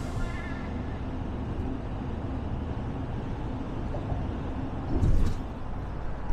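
Steady road and engine noise inside a van's cabin at highway speed, with a brief louder thump about five seconds in.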